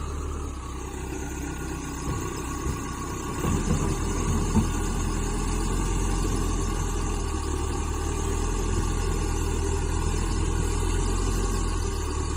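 Backhoe's diesel engine running steadily, with a few knocks a couple of seconds in.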